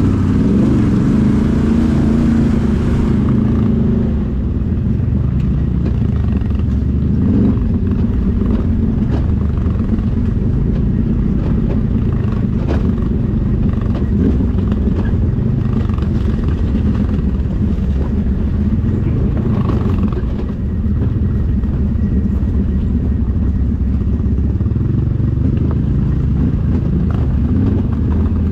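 Can-Am Outlander XMR 1000R ATV's 976cc Rotax V-twin engine running steadily while riding, brighter for the first three seconds, with occasional short knocks and clatter.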